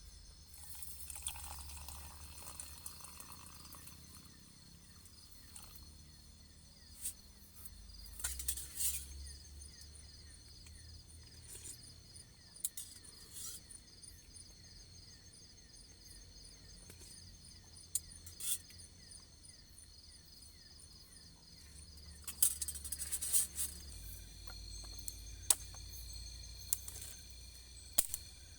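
Insects chirring in a steady, high, pulsing chorus, with scattered sharp clicks and knocks.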